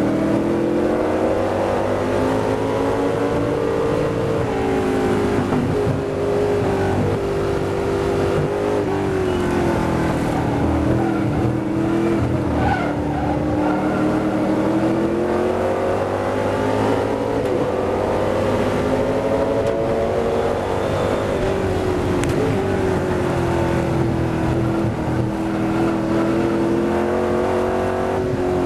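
McLaren M1B's V8 engine heard from the open cockpit, pulling hard with its pitch rising and falling several times as the car accelerates, lifts and changes gear through the corners. Wind noise rushes over the microphone throughout.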